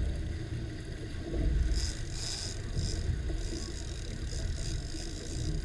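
Steady low rumble of a boat at sea, from wind and water, with a few short hisses about two seconds in and again later.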